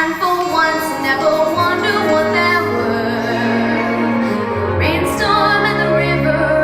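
A young girl singing solo with instrumental accompaniment, holding long notes over a steady bass line.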